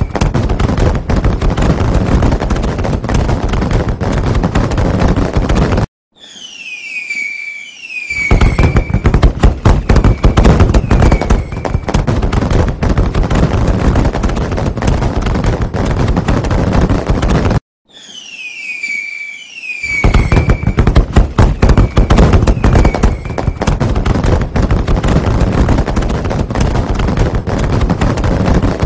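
A dense barrage of fireworks crackling and banging. Twice it cuts off suddenly, then comes back with a couple of falling whistles before the crackle resumes. The same stretch repeats about every twelve seconds, like a looped recording.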